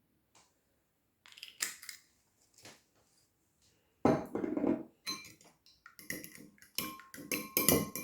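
A metal fork beating eggs on a ceramic plate: a few light clinks, then from about halfway a quick run of sharp fork-on-plate strikes that ring.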